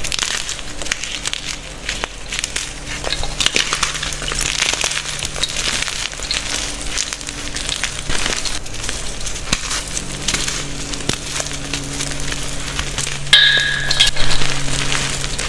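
Hands crushing and crumbling chunks of gym chalk in loose powder: dense, irregular crunching with many small cracks. About thirteen seconds in, a brief high ringing tone sounds over the crunching and is the loudest thing heard.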